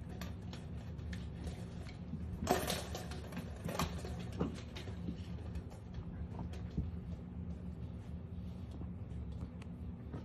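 Soft rustling and scuffling as a dachshund puppy burrows into a thick knit blanket on carpet, with louder rustles about two and a half and four seconds in, over a steady low hum.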